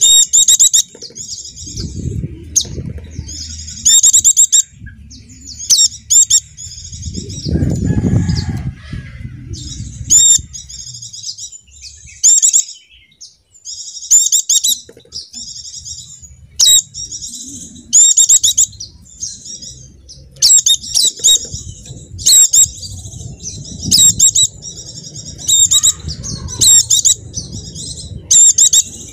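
Pleci dakun (white-eye) calls: loud, high-pitched chirps in rapid bursts, repeated with short pauses between them. A low rumble comes under the calls about two seconds in and again around eight seconds.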